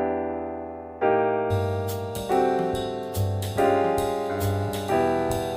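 Background music led by piano chords over a steady beat, the beat coming in about a second and a half in.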